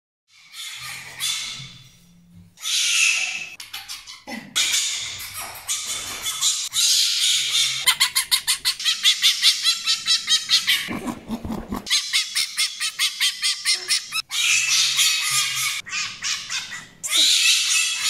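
Fennec fox screaming: loud, shrill calls in repeated bursts, some broken into rapid chattering pulses, with several abrupt changes between calls.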